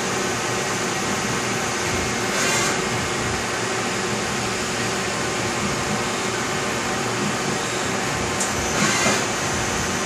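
CNC lathe running its cycle, a steady machine whir with coolant spray, while a step drill bores the hole for tapping. Two brief louder hissing swells come about two and a half seconds in and near the end.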